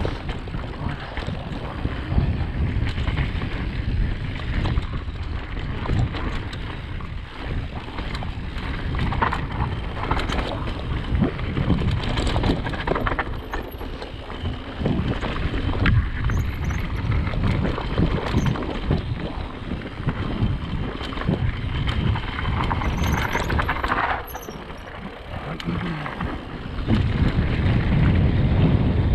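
Riding wind buffeting the action camera's microphone as a Radon Swoop enduro mountain bike descends a rough trail at speed, with repeated knocks and clatters from the bike and its tyres over the ground. The wind rumble grows louder near the end.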